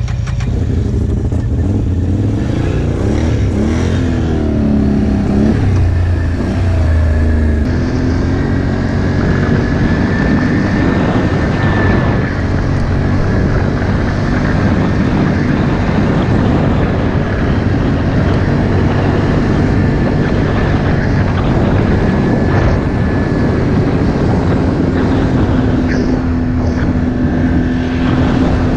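Can-Am ATV engine running while it is ridden along a dirt trail. Its pitch rises and falls over the first several seconds, then it settles into a steady drone with a thin high whine over it.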